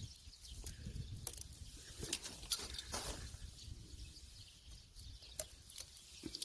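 Irregular light clicks and rustling of leaves and stems as plastic pepper holders are clipped onto pepper plants and locked onto their support strings.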